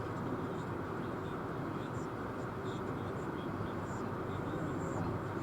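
Steady road and engine noise of a vehicle travelling at freeway speed, with faint scattered ticks.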